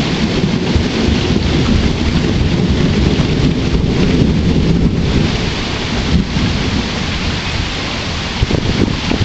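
Steady rain falling, with a long, low roll of thunder rumbling under it that is strongest for the first five seconds or so and then eases.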